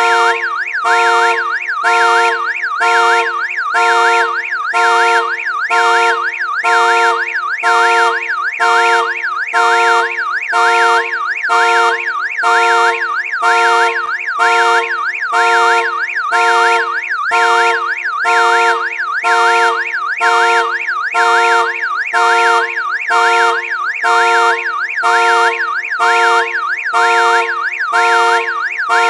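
Car alarm siren sounding continuously and loud: a warbling electronic tone that repeats in an even cycle about once a second.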